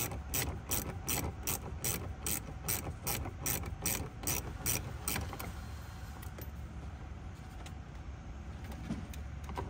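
Hand ratchet wrench clicking as it is worked back and forth to undo a dash-panel bolt, with steady, evenly spaced clicks about two to three a second that stop about five seconds in. Then comes quieter handling of the plastic trim.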